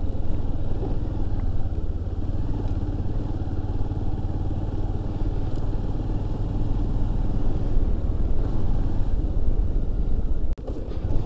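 Motorcycle engine running steadily at low speed while the bike is ridden along a rough dirt track, a continuous low rumble. The sound cuts out briefly about ten and a half seconds in, then returns.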